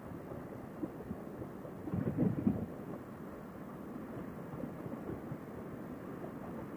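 Steady wind rush and muffled motorcycle riding noise heard through a helmet intercom microphone, with a short louder rumble about two seconds in.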